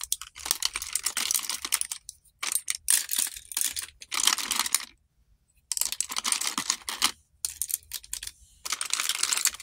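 Makeup brushes and plastic cosmetic items clattering and rattling as a hand rummages through a drawer and drops brushes into a plastic basket, in stretches of busy clicking with short pauses, the longest about halfway through.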